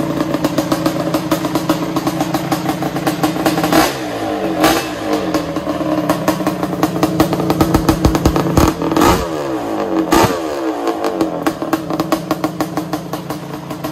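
Suzuki LT500R Quadzilla's 500 cc single-cylinder two-stroke engine running through a Dr. Q exhaust on its first start-up after a rebuild. It idles steadily, with about four quick throttle blips that rev it up and let the pitch fall back.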